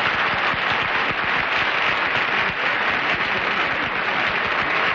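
Studio audience applauding, a steady dense clapping that holds at one level.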